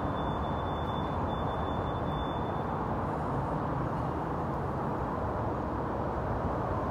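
Steady rumbling noise that does not change, with no distinct events and a very faint high steady tone in the first few seconds.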